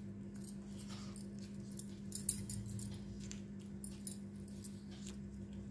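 Faint rustling and small clicks of cotton thread being wound tight around a bundle of dried corn husks by hand, over a steady low hum.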